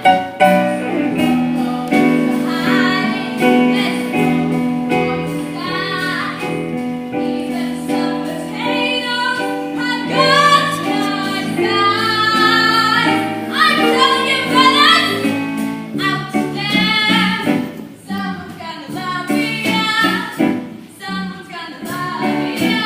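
A female voice singing a musical-theatre song over held notes of instrumental accompaniment.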